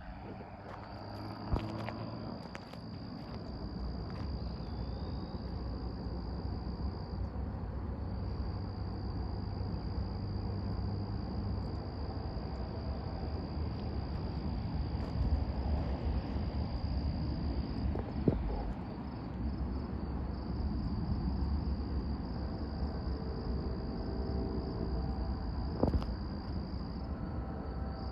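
Insects trilling in one steady high continuous tone over a low rumble, with a few faint knocks.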